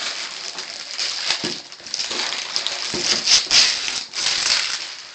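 Gift wrapping paper being torn and crinkled by hand, a run of rustles and rips, loudest about three and a half seconds in.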